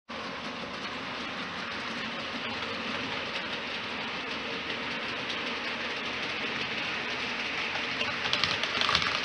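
Heljan model Class 33 diesel locomotive with its train of tank wagons approaching on model track, a steady mechanical running sound that grows louder as it nears. A run of clicks comes near the end.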